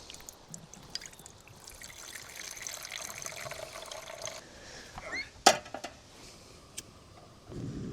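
Liquid being poured for about three seconds, stopping abruptly, followed by a single sharp click.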